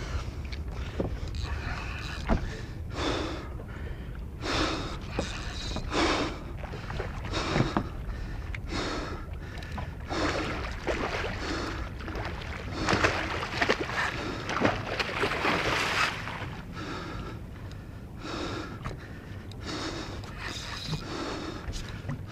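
A man breathing hard and fast from the exertion of fighting a large hooked tarpon, one short noisy breath about every second, over a steady low rumble of wind on the microphone.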